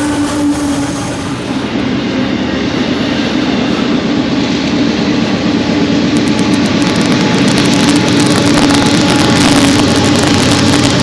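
Diesel locomotives of a passing freight train, their engines running with a steady drone while the rumble and rush of the train grow louder over the second half.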